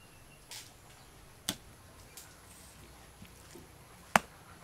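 A few separate sharp taps and knocks as raw beef is handled on a round wooden chopping board, the loudest a single sharp knock near the end.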